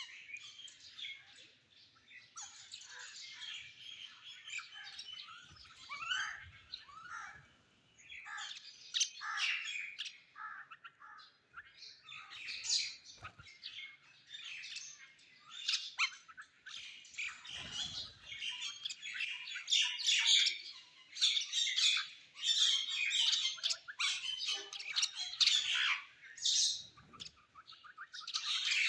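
Birds chirping and squawking in dense, overlapping chatter of short high calls, with brief lulls.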